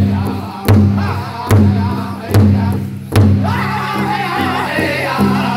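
Powwow drum group playing a large powwow drum in unison with padded beaters, a steady beat a little under a second apart. About three seconds in the singers' voices come in together over the drum for an intertribal song.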